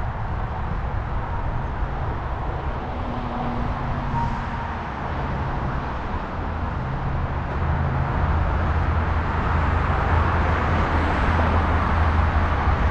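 Road traffic noise mixed with low wind rumble, heard from a moving bicycle. The low rumble grows louder about halfway through.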